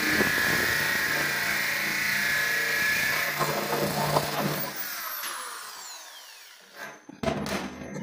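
Corded power drill with a hole saw cutting through a steel gland plate, running steadily under load. Trigger released about four and a half seconds in, the motor winds down in falling pitch, then a few knocks near the end.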